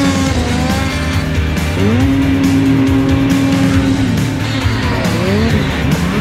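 Snowmobile engine revving hard in deep powder, its pitch climbing and held high for a couple of seconds in the middle, then dropping and rising again near the end. Background music plays under it.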